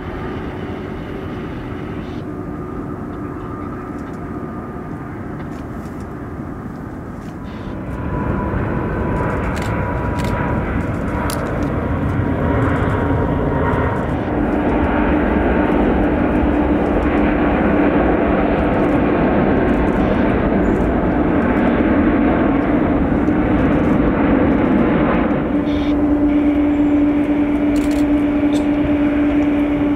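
Engines of a large widebody freighter jet running with a steady drone and engine tones, growing louder about eight seconds in and holding there.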